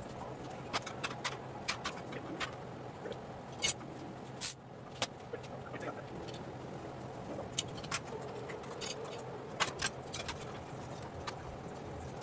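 Scattered light metallic clicks and knocks as steel bar clamps and a steel frame rail are handled, over a steady low hum of shop background.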